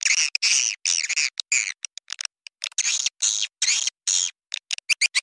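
Swiftlet lure call: swiftlets' rapid twittering chirps in short bursts with brief gaps between them, the kind of recording played to draw swiftlets into a nesting house.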